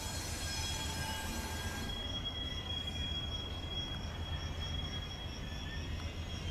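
Passenger train rolling slowly through the station, its wheels squealing on the rails over a steady low rumble. From about two seconds in, a high squeal pulses about four times a second.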